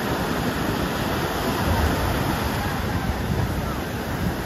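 Ocean surf breaking and washing up the shore in a steady rush, with wind buffeting the microphone.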